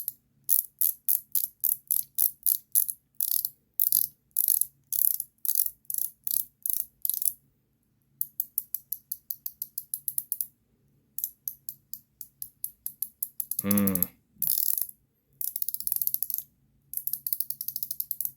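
Ratchet fidget ring (ACEdc mechanical ring) being turned, its pawl clicking in repeated short runs of sharp, high clicks with brief pauses between. About fourteen seconds in comes one short falling tone.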